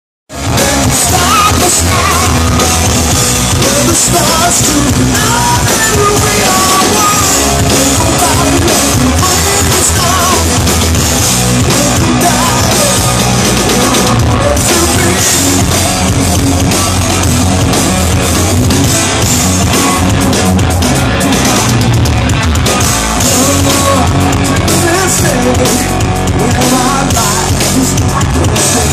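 A live rock power trio playing loud: electric guitar, bass guitar and a drum kit, heard from within a club audience. The sound fades up within the first half second and then stays loud and steady.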